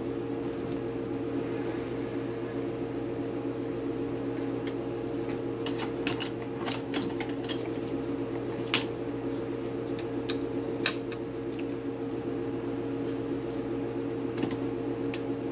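Sharp metal clicks and clinks as a twist drill bit is fitted into a metal lathe's tailstock chuck, tightened and set up against the work, over a steady machine hum.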